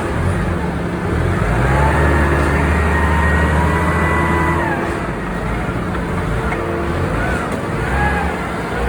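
Heavy machinery running with a steady low hum. Its pitch climbs about a second and a half in, holds, and falls away near the five-second mark.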